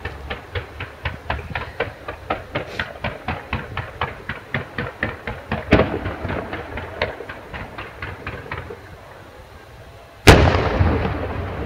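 Fireworks display: a rapid, even string of cracking reports, about four a second, with one louder report midway, dies away; after a short lull, a single very loud bang near the end rolls out in a long echoing rumble.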